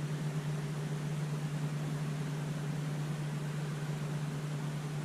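A steady low hum with an even hiss over it, unchanging throughout, like a running motor or pump.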